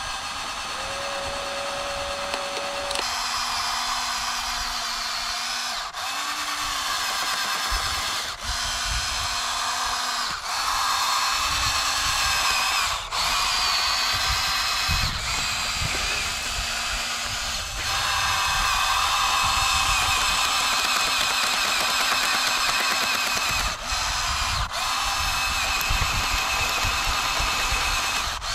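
Small electric motors and gearboxes of radio-controlled construction models whining steadily, like a power drill. The sound breaks off briefly every few seconds and the pitch shifts slightly from one stretch to the next.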